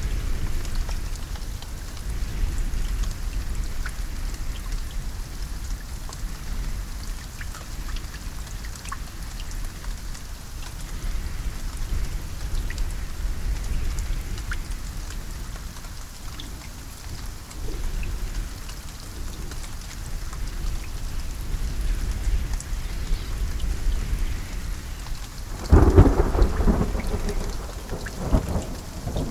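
Steady rain falling, with low thunder rumbling underneath and a sudden loud thunderclap near the end that rolls away.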